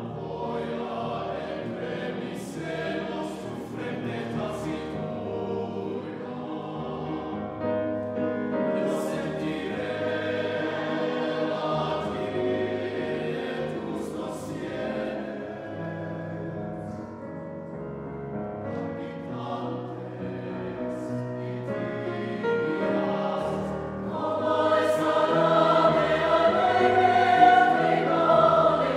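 Mixed choir of men's and women's voices singing a choral piece in held, overlapping chords, with sharp 's' consonants cutting through now and then. The singing swells louder about five seconds before the end.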